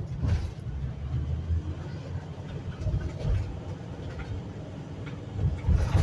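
Steady low road and engine rumble from inside a moving RV, with a sharp jolt just after the start and another near the end.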